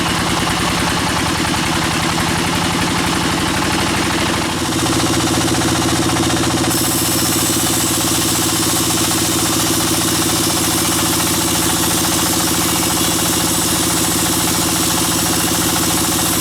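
Sawmill band saw machinery running steadily with a pulsing, engine-like drone. The sound shifts and gets a little louder about four and a half seconds in, and takes on more hiss a couple of seconds later.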